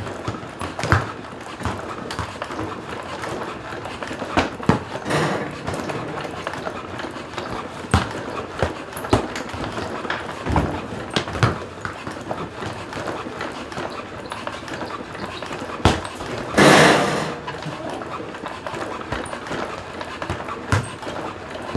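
Footfalls of the Mercury biped robot, an irregular clip-clop of knocks as its feet strike a floor mat in continuous recovery steps, the passive-ankle robot stepping to keep its balance. About seventeen seconds in, a louder rushing burst lasts under a second.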